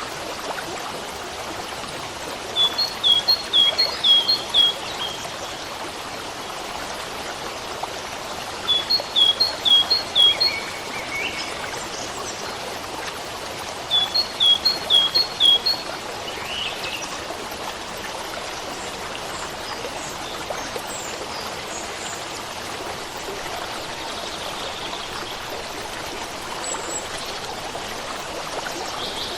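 Steady running water of a stream, with a songbird singing a short phrase of about five quick high notes three times, roughly six seconds apart, and a few fainter chirps later on.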